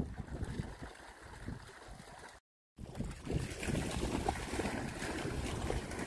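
Dogs splashing through shallow lake water, with wind rumbling on the microphone. There is a brief dropout to silence about two and a half seconds in, then louder, brighter splashing as several dogs charge into the water together.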